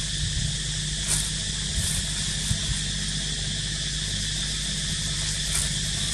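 Steady drone of insects over a constant hiss and low hum, broken by a few brief clicks or rustles.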